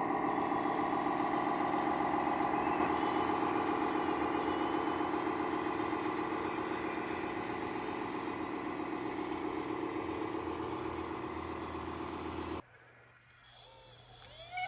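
Engine-like running of an RC excavator and dozer, steady with a fast, even pulse, slowly getting quieter. It cuts off suddenly near the end, and music with gliding tones comes in.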